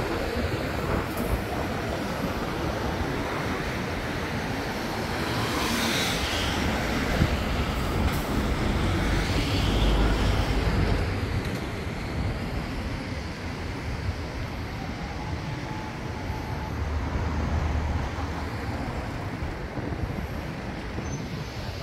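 Road traffic on a city street: a continuous rumble of engines and tyres, swelling as a vehicle passes about ten seconds in.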